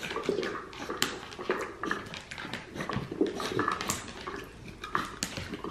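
Mini pig grunting in short, repeated grunts while rooting a treat-dispenser ball along a hardwood floor, with light clicks and knocks as the ball rolls.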